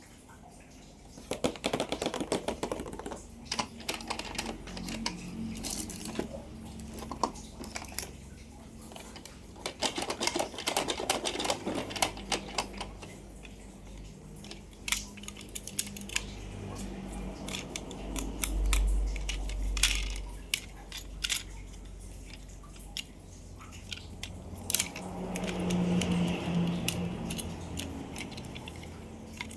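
Hands handling toy car packaging: crinkling plastic and cardboard with many sharp taps and clicks, and a low rumble that swells twice in the second half.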